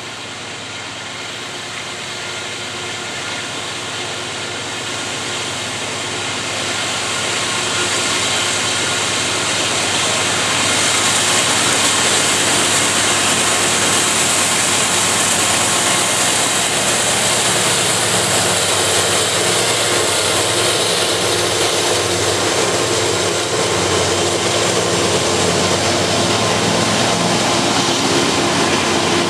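Norfolk Southern diesel freight locomotive approaching and passing, growing steadily louder over the first ten seconds or so, then the steady rolling noise of a string of covered hopper cars going by on the rails.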